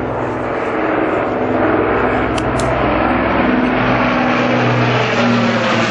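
Avro Lancaster bomber flying low overhead, its four Rolls-Royce Merlin piston engines making a steady propeller drone that grows louder as it approaches.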